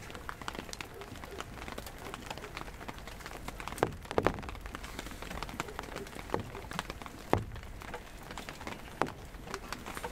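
Rain falling, with many irregular drops tapping close by and a few louder single drips now and then.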